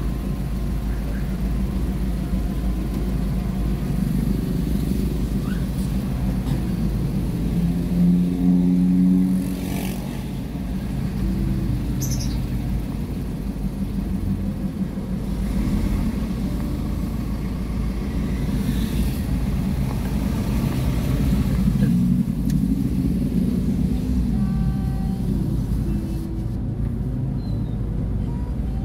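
Engine and road noise heard from inside a moving vehicle in slow traffic: a steady low rumble, with the engine note swelling about eight seconds in and rising and falling again a little past the middle.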